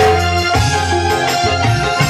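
Live dangdut band playing an instrumental passage with no singing: an electronic keyboard melody over sustained bass notes and a steady beat.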